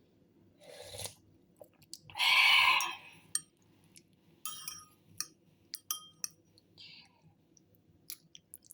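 Someone eating herbal fish soup: mouth and chewing noises, with a loud noisy mouthful about two seconds in, then a run of small clicks and clinks.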